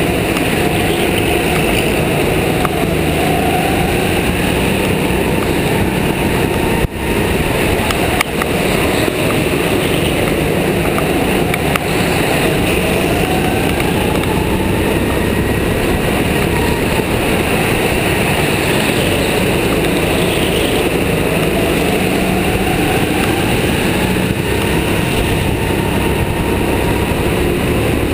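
Go-kart motor running hard at speed, heard onboard, its pitch rising and falling as the kart brakes and accelerates through the corners.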